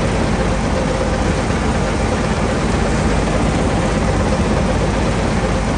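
Steady running of a combine harvester's engine and machinery, an even noise with a faint low hum and no change in pace.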